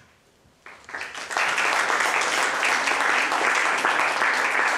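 Audience applauding. It starts about a second in and quickly builds to steady clapping.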